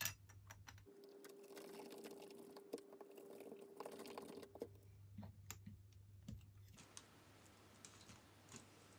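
Faint irregular clicking and tapping of small plastic and metal parts of a disassembled Nikon D90 camera body being handled and fitted together, over a low steady hum.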